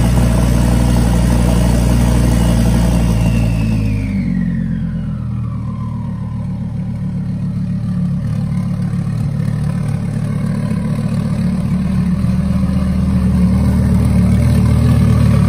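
Twin-turbocharged Audi R8 engine idling after a cold start. About four seconds in, a whine falls away in pitch and the idle drops lower and quieter, then the engine idles steadily and slowly grows louder again.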